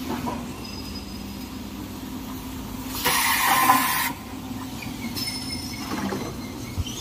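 Kitchen-towel rewinding machine running with a steady low hum, with a loud burst of hissing about three seconds in that lasts about a second.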